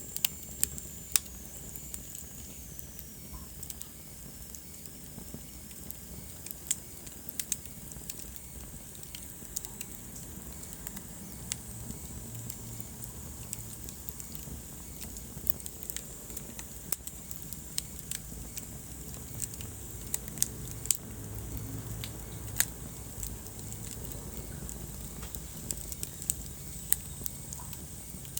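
Wood fire burning in a fireplace, crackling with irregular sharp pops and snaps over a steady low rumble of the flames. A faint high whistle slides lower in pitch over the first few seconds.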